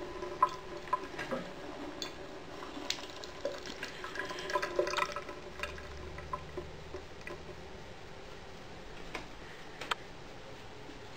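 Water dripping from a tap into a ceramic washbasin: irregular plinking drops, many in the first six seconds, then only a couple near the end.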